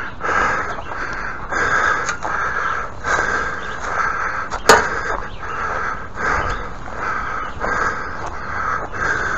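Crows cawing over and over in a long, raspy series, with one sharp knock a little past the middle.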